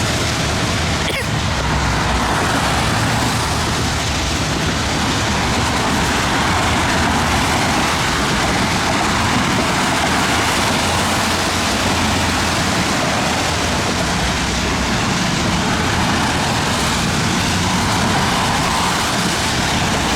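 Heavy thunderstorm rain pouring with gusty wind: a loud, steady rushing noise.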